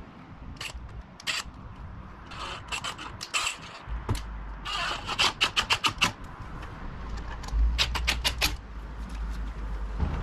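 Cordless screwdriver working a bolt on a motorcycle handguard mount: scattered sharp clicks and a short scrape, then two runs of quick, even clicks, about five a second, around the middle and again near the end.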